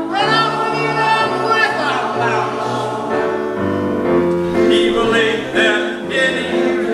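Male voices singing with piano accompaniment, the voices swelling in and out over held piano chords.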